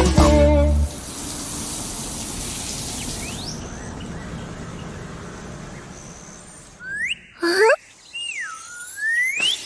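A children's song stops, then a hiss like running water or rain fades away. Near the end come several bird-like chirps and whistles that sweep up and down in pitch.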